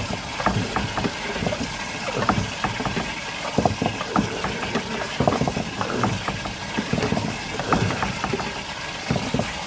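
Drain inspection camera and its push rod knocking and rattling irregularly as they are pushed along a drain pipe.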